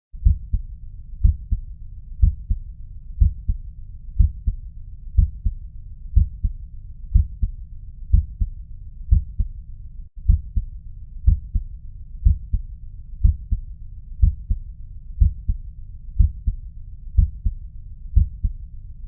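Heart sounds heard through a stethoscope: a steady two-part lub-dub beat about once a second over a low continuous rumble, with a brief break about ten seconds in.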